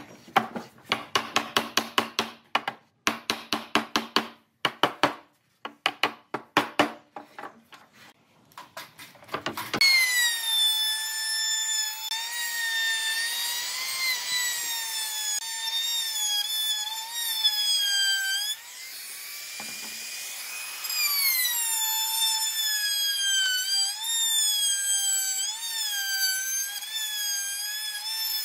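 Quick runs of wood-on-wood knocks as a wooden mallet taps the joints of a pallet-wood frame together. About ten seconds in, a compact electric trim router starts up and runs with a high whine that wavers in pitch as it cuts along the frame's edges, dropping briefly about two-thirds of the way through.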